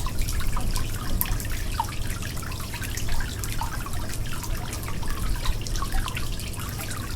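Water leaking and dripping: a quick, irregular patter of drops and small plinks, with a trickle under them and a steady low hum beneath.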